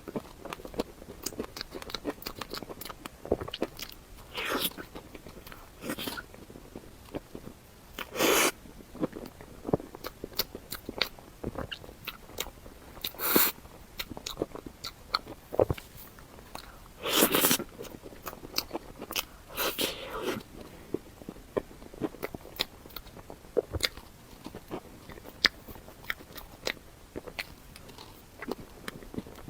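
Close-miked eating: a steady stream of small wet mouth clicks and chewing, broken every few seconds by a louder crunchy bite, five in all.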